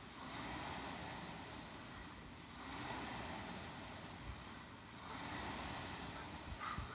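Air rowing machine's flywheel fan whooshing with each stroke, swelling and fading about every two and a half seconds, three strokes in all.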